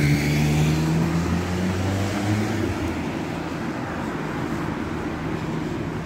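A motor vehicle's engine running close by, over street traffic noise. Its steady low hum fades about three seconds in, leaving the traffic noise.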